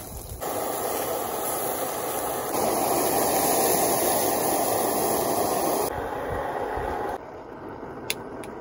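Chicken drumsticks, then chicken with chopped vegetables, sizzling in oil in a cast-iron skillet on a camping gas stove: a steady sizzle in a few cut segments, loudest in the middle. It stops about seven seconds in and gives way to quieter outdoor background.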